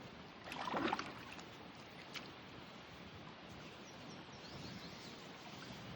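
Faint, steady outdoor noise on a river, with a brief louder rustle about half a second in and a single click at about two seconds.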